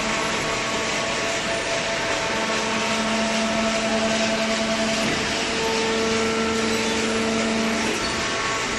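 Hydraulic cardboard baler running: a steady hiss and hum from its motor and pump, with a whine that grows stronger about two seconds in and shifts again later as the press works.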